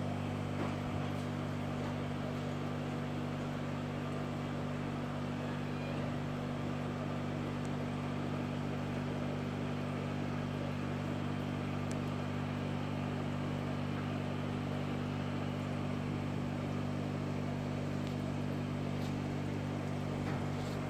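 Steady low hum of an electric motor, several fixed pitches held together, with a faint even hiss over it.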